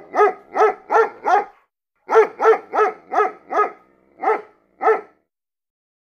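A dog barking in a run of short, high yaps, about three a second, with a brief break about a second and a half in; the barking stops about five seconds in.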